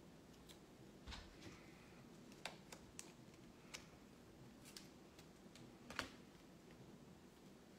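Faint, irregular clicks and light taps a second or so apart, the sharpest about six seconds in, over a low steady room hum.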